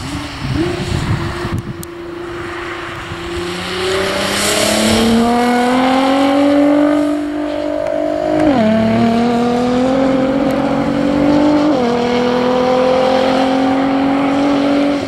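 Nissan GT-R R35's twin-turbo V6 accelerating hard on a wet track. The car passes close, then pulls away with its engine note climbing steadily. There are two upshifts, about halfway and about three-quarters of the way through, and at each one the pitch drops sharply before climbing again.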